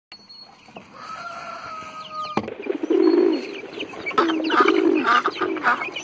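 Domestic poultry calling: repeated clucking calls, about two a second, starting about two and a half seconds in. Before them, a steady whistle-like tone that cuts off sharply.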